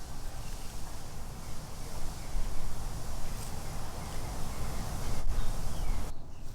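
Outdoor yard ambience: a low, uneven wind rumble on the microphone with a few faint bird chirps.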